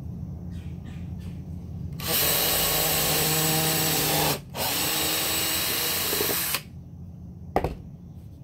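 Ryobi cordless drill working into a wooden planter box, run in two steady bursts of about two seconds each with a brief pause between. A single sharp click follows about a second after it stops.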